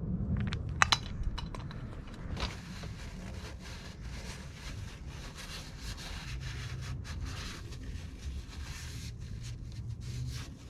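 Rubbing and scraping handling noises, with a few sharp clicks about a second in.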